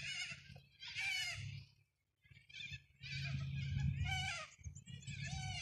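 Harsh, bleat-like animal calls, four or five in a row, each wavering and lasting about half a second, over a low rumble.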